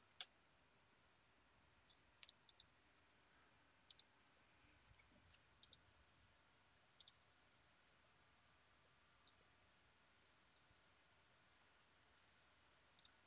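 Near silence with faint, scattered computer mouse clicks, a dozen or so spread irregularly through the stretch.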